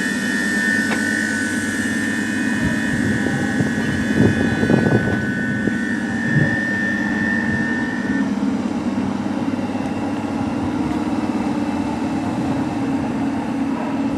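Electric multiple unit of type EJ575 arriving at a station, its electric equipment humming steadily. A high steady whine runs alongside until it stops about eight seconds in, and a few clunks come around the middle.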